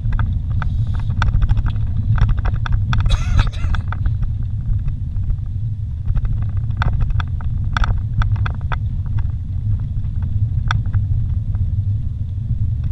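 Vehicle driving slowly over a rough dirt forest road, heard from inside the cab. A steady low rumble of engine and tyres runs under frequent short knocks and rattles as it bumps along.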